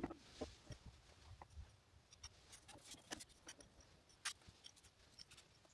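Near silence, broken by faint scattered clicks and ticks.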